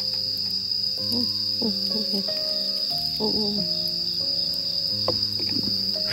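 Crickets chirring in one steady, unbroken high trill, over soft background music with sustained notes.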